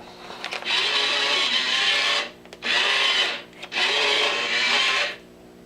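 A 12-inch remote-control Dalek toy gives three harsh buzzing bursts of a second or so each, with a faint steady hum between them.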